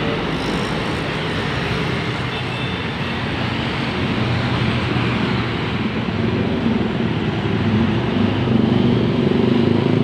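Street traffic of buses, a truck and motorbikes: heavy diesel engines running and passing close by. The deep engine rumble grows louder over the last few seconds.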